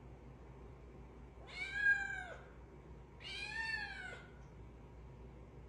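Kitten meowing twice, two drawn-out high meows about a second each, each rising and then falling in pitch.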